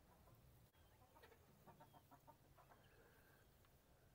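Faint clucking of hens inside a nest-box coop, a run of short clucks starting about a second in.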